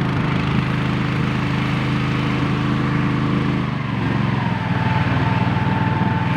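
A small engine running steadily, its note changing about two thirds of the way through as it slows or changes load.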